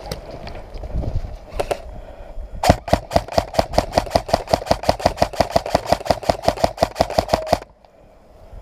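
Airsoft gun firing a long rapid string of shots, about six a second for roughly five seconds, that stops suddenly near the end, with a couple of single shots before it.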